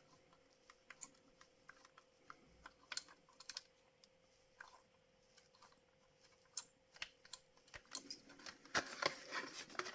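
Scattered small clicks and scrapes of a small screwdriver working a very tight screw out of the metal base of a die-cast model coach, with a faint steady hum underneath.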